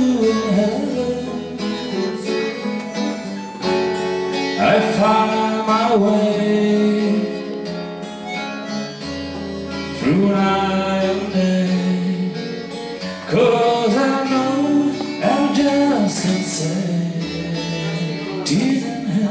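Live acoustic guitars playing a folk tune, strummed chords that change every few seconds.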